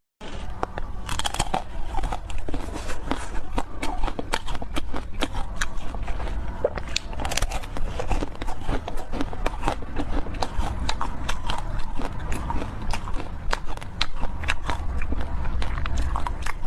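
Close-miked eating of cake: biting and chewing with a dense stream of sharp wet mouth clicks and crackles.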